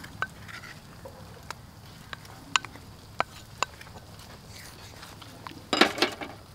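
Hot oil in a wok of fried tofu crackling with scattered sharp pops, then a louder flurry of spattering a little before the end.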